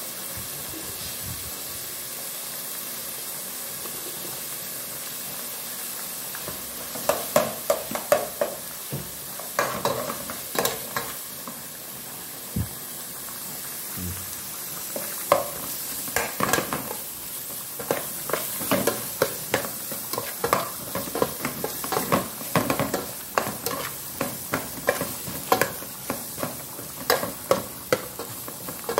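Chopped onion, scallions and peppers sizzling in hot oil in a metal pot. From about seven seconds in, a metal spoon stirs through them, scraping and clinking against the pot over and over.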